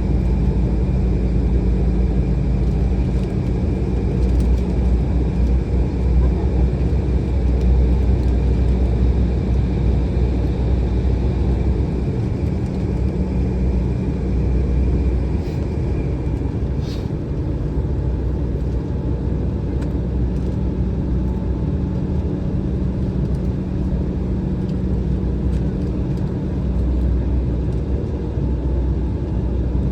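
Cabin noise inside an Embraer E175 airliner on the ground before takeoff: a steady low rumble with a steady hum, and a single light click about 17 seconds in.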